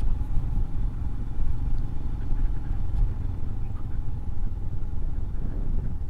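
Motorcycle running steadily on the move: a continuous low rumble of engine and road noise.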